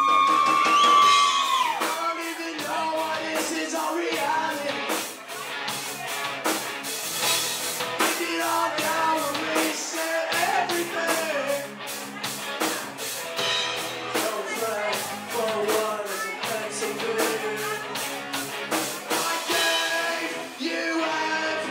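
Live rock band playing: electric guitar, bass guitar and drums, with a male voice singing. It opens on a long held electric guitar note that bends down, then the drums come in with steady cymbal strikes under the guitars.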